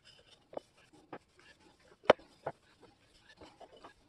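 Cloth rubbing oil onto the jack's operating handle, with scattered light knocks and clicks as the handle shifts on the bench. The loudest knock comes about two seconds in, with another just after.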